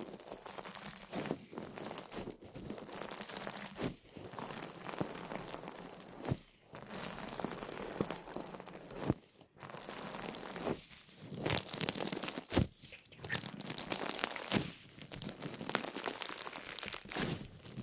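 Crinkling and crunching noise in bouts of a few seconds, broken by short pauses.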